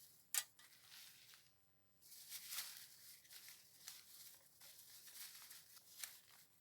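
Faint rustling and crinkling, as of something being handled, with a single sharp click under half a second in.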